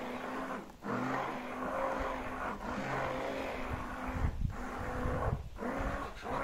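Electric food processor chopping peppers for pepper paste: the motor hums steadily and drops out briefly several times, with heavier low thuds a little past the middle as the chunks are thrown about.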